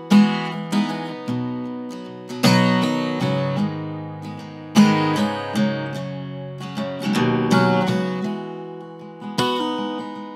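Acoustic guitar strumming chords: a strong strum about every two and a half seconds, with lighter strokes between, each chord ringing out and fading before the next.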